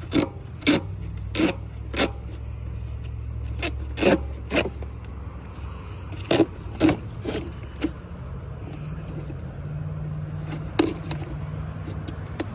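Footsteps of someone walking, a series of crunching steps, over a steady low hum.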